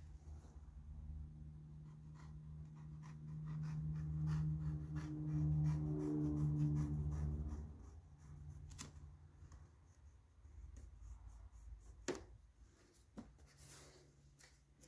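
Hands handling and rubbing a car's interior trim material, giving scratchy rustles and small clicks, with a sharp click about twelve seconds in. Under it a steady low mechanical hum swells in the middle and drops away about seven and a half seconds in.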